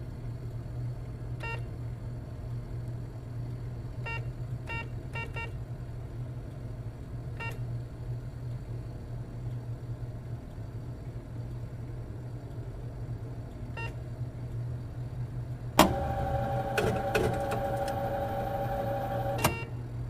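Automatic teller machine: short keypad beeps at irregular spacing over a steady low machine hum, then about 16 seconds in a sharp click and an internal motorised mechanism whirring with a steady whine for about four seconds before stopping with another click.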